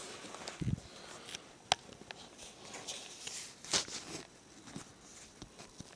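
Comic books being handled: scattered paper rustles and light clicks and knocks, with a soft low thump just under a second in and a louder rustle a little before the four-second mark.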